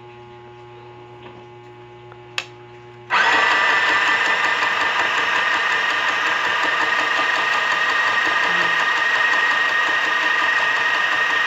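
Mini electric sewing machine's small motor switching on about three seconds in and running at a steady whine as it spins thread onto the bobbin on the winder spindle. A low mains hum and a single click come just before it starts.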